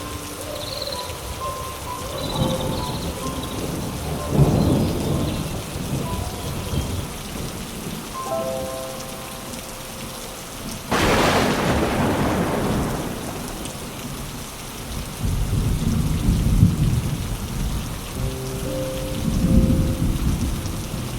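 Thunderstorm: steady rain falling, with low rolling thunder several times and one sharp thunderclap about halfway through that fades out over a couple of seconds.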